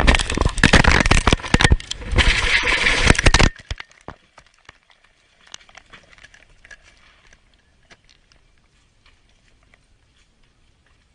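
Loud, chaotic crashing and clattering of a helicopter coming down through trees and hitting the ground, recorded on a phone inside the cabin. After about three and a half seconds it stops abruptly, leaving only faint scattered crackling.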